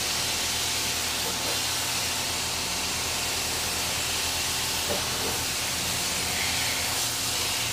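Steady hiss of a water spray rinsing cleaner and grime off a car's engine bay, with a faint steady low hum underneath.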